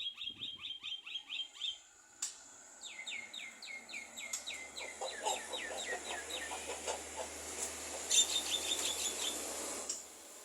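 Javan myna singing: a quick run of repeated chirps, then after a short pause a long series of falling whistled notes, about three a second, then faster mixed chirps that stop shortly before the end.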